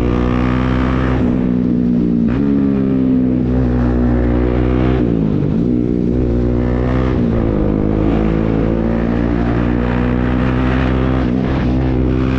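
Motorcycle engine running through an aftermarket Akrapovič exhaust with its dB killer removed, holding a steady, loud note. The pitch sags briefly a few times.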